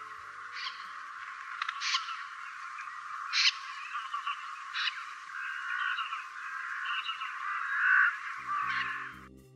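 Many birds calling together in a dense chatter, with sharper single calls standing out now and then. The chatter cuts off suddenly just before the end.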